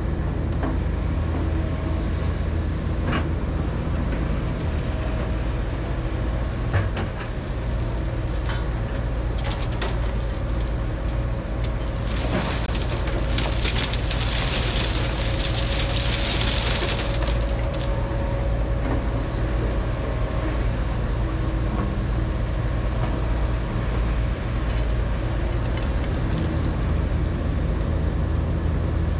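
Large Liebherr hydraulic excavators' diesel engines running with a steady low drone, with a single knock about seven seconds in and a rush of hiss from about twelve to seventeen seconds in.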